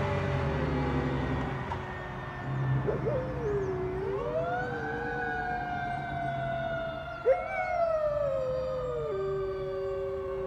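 Fire engine's siren wailing, its pitch rising quickly and falling slowly several times as the truck pulls away, with low engine rumble fading out in the first couple of seconds.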